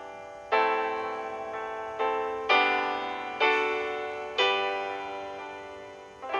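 Slow, gentle piano music: sustained chords struck about once a second, each ringing out and fading.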